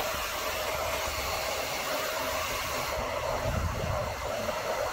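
Hand-held hair dryer running steadily on hot air, a rushing hiss with a faint steady hum, aimed at a motorcycle fuel tank to warm the decal adhesive. A brief low rumble comes in about three and a half seconds in.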